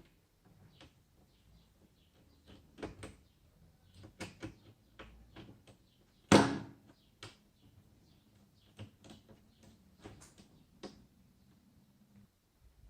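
Scattered clicks and knocks from laptop parts and tools being handled during a repair, with one much louder knock about six seconds in.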